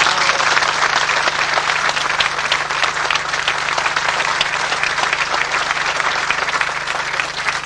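Audience applauding: many hands clapping in a dense, steady round of applause that eases off slightly near the end.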